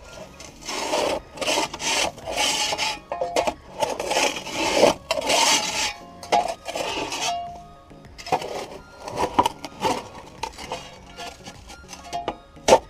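Packed dirt being scraped and knocked out of an excavator's track undercarriage: a run of irregular rasping scrapes, with a sharp knock near the end, over background music.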